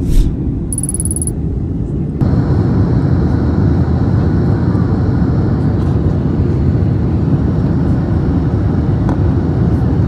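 Steady rumble of engine and airflow noise inside the cabin of a WestJet Boeing 737 in flight, heard at the window seat. It steps louder and brighter about two seconds in, and a brief high electronic tone sounds about a second in.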